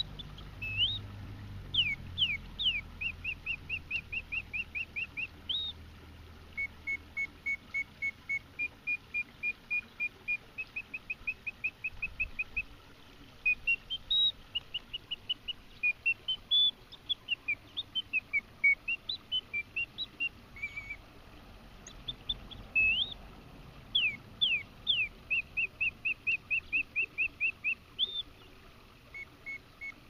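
Reuge singing bird cage playing its mechanical birdsong: a bellows-fed piston whistle gives high rising swoops and runs of quick repeated chirps, about four a second, in phrases broken by short pauses.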